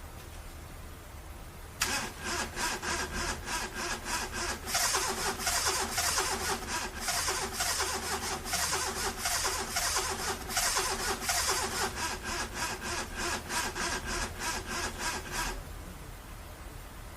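A car's starter motor cranking the engine in a long, rhythmic run of about four strokes a second, with the engine not catching. It starts suddenly, grows louder a few seconds in and cuts off abruptly: a failed attempt to start.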